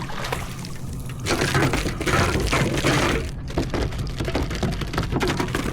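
A hooked trout thrashing and splashing at the water's surface while it is fought in to the kayak. There is a loud burst of splashing about a second in that lasts some two seconds, with sharp cracks and clicks around it.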